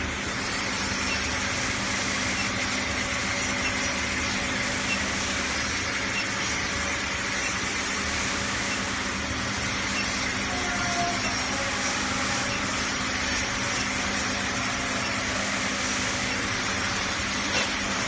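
Platinum induction melting furnace running through a melt: a steady hiss with a constant low hum.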